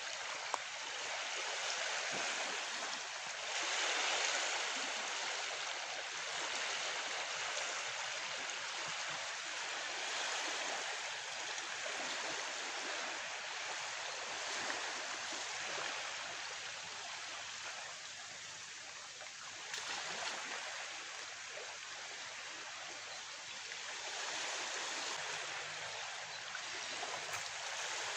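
Steady rush of flowing river water, swelling and easing slightly.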